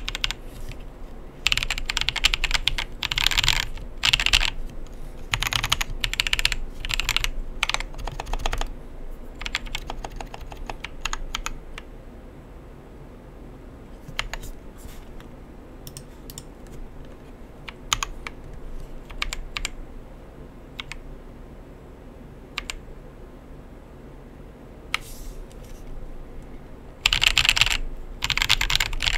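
Typing on a KBDfans 60% custom keyboard with Krytox-lubed Tecsee Neapolitan Ice Cream tactile switches (POM stems) and pudding keycaps. Fast runs of keystrokes fill the first nine seconds or so and return near the end, with slower, scattered single key presses in between.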